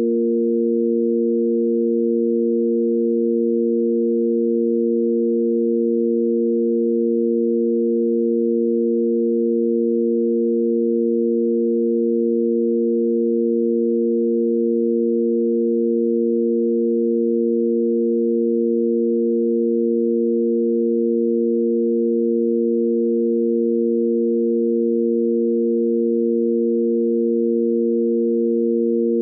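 Sine-wave tanpura drone: three pure, unwavering sine tones on A#, sounding the root, the fifth and the octave above together. It holds perfectly steady, with no pluck or swell.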